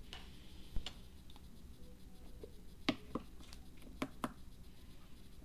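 A few light, separate clicks and taps as fingers press the buttons of a small digital variable-voltage power supply module on a workbench, with two pairs of quick clicks in the second half.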